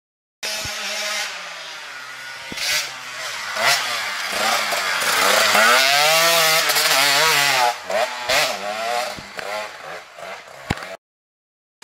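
Sherco 125 enduro dirt bike riding a forest trail, its engine note rising and falling over and over with the throttle. It is loudest about halfway through, fades somewhat, then stops suddenly near the end.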